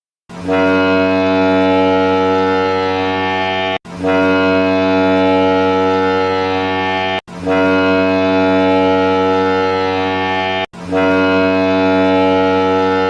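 Hockey goal horn blowing four long blasts of about three and a half seconds each, with only brief breaks between them; the fourth is still sounding at the end.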